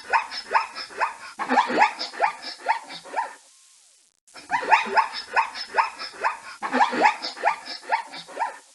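Zebra barking: runs of short, repeated yelping barks at about three a second, broken by a brief pause about three and a half seconds in before a second run starts.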